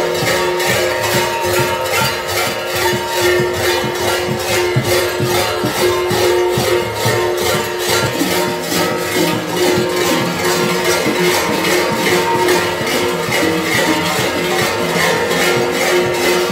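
Many large metal kukeri bells (hlopki), worn in clusters at the belt, clanging together in a continuous rhythmic jangle, their ringing tones sustained over the repeated strikes.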